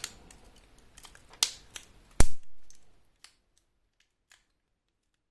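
Plastic clicks of a smartphone's middle frame being pressed onto the phone: a couple of small clicks, then one sharp snap about two seconds in as a clip catches, then a few faint ticks.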